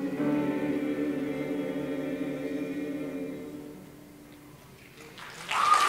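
A young men's choir singing unaccompanied, holding a final chord that dies away about four seconds in. Applause and a cheer break out just before the end.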